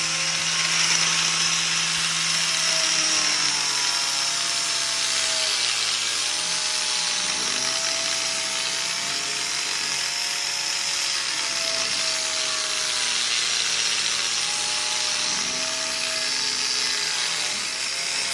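Electric grinding machine running continuously, grinding dried body filler level on a chair; a steady hissing grind with a motor whine that wavers in pitch as the tool is pressed into the work.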